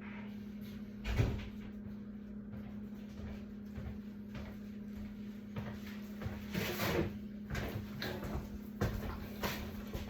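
A sharp thump about a second in, then a run of short knocks and clatters, like a cupboard and containers being handled, over a steady low hum.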